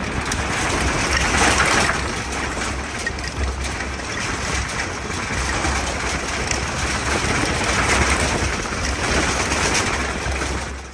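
4WD vehicle driving over a corrugated dirt track: a steady low rumble of engine and tyres with road noise over it.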